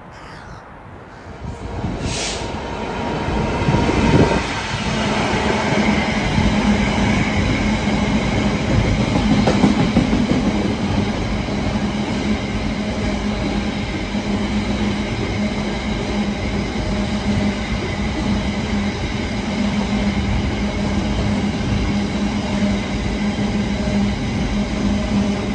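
Freight train of tank-container wagons running past at speed: wheels rolling on the rails in a dense, steady rumble with a continuous low hum. It builds up over the first few seconds and then holds steady.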